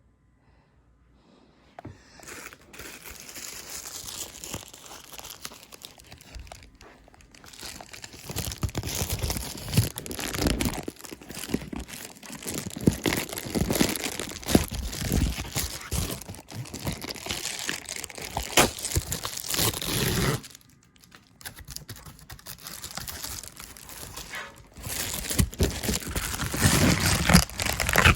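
A package's wrapping being crinkled and torn open by hand, in long rustling, crackling bouts with a couple of short pauses, loudest near the end.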